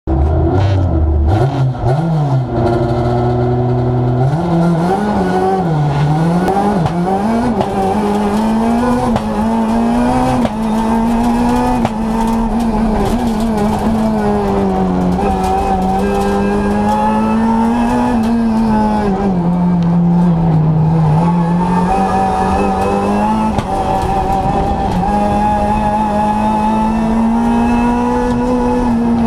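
Renault Clio R3 rally car's 2.0-litre four-cylinder engine heard from inside the cabin: it runs low and steady for about four seconds, then its revs rise and fall over and over as the car is driven off and worked through the gears.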